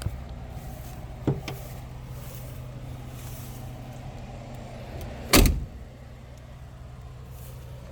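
A vehicle door on the Suburban thumps shut once, sharply, about five seconds in, over a steady low hum, with a fainter click about a second in.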